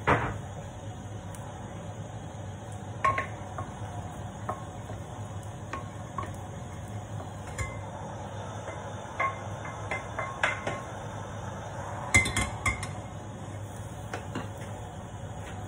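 Wooden spatula knocking and scraping in a stainless steel pan, with scattered metal cookware clinks. A loud clank comes right at the start and another about twelve seconds in.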